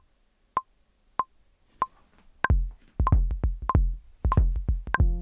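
Logic Pro's metronome counting in at 96 beats per minute: four clicks, the first one higher. From about two and a half seconds a drum machine's deep kick pattern comes in under the clicks, which keep time.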